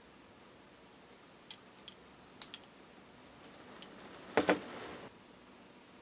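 Light clicks and taps of small hand tools and parts being handled at a workbench: a few faint ticks, then two sharp clicks close together about four and a half seconds in, followed by a brief rustle.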